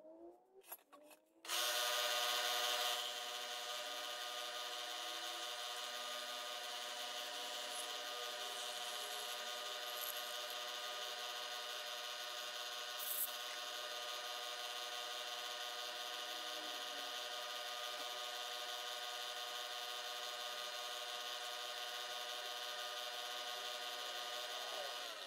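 Milling machine spindle starting about a second and a half in and running steadily as an end mill cuts a Delrin block, a steady whine of several tones, louder for its first second or so. It runs until it stops at the end, with one short click midway.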